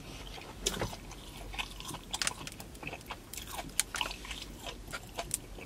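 A person chewing a bite of sauced fried chicken close to the microphone, with irregular crunches and mouth clicks.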